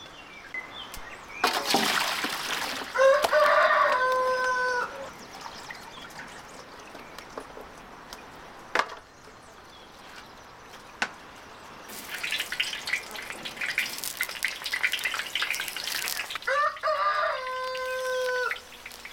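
A rooster crows twice, about three seconds in and again near the end, each crow ending in a long held note. Eggplant slices sizzle and crackle in hot oil in a wide steel pan, loudest just before the second crow.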